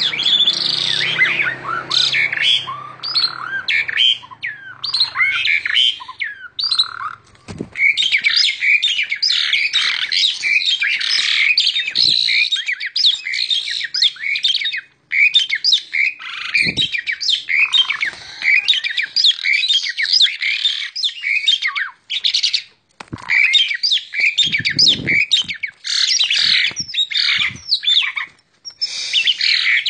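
Male Asian pied starling (jalak suren) singing a long, nearly unbroken run of quick, varied notes and glides, with a few short breaks.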